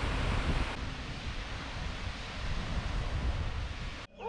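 Small waterfall splashing into a rock pool: a steady rushing of falling water, dropping away sharply near the end.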